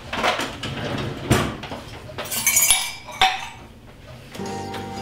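Crockery and cups clinking and knocking on a kitchen counter and table, with a bright ringing clink about two and a half seconds in. Music comes in near the end.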